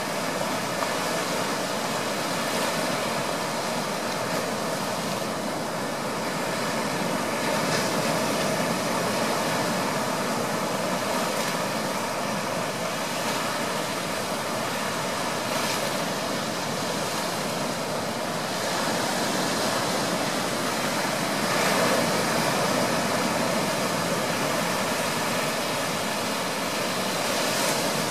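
Ocean surf washing steadily onto the beach, swelling louder a few times as waves break, most of all about three-quarters of the way through.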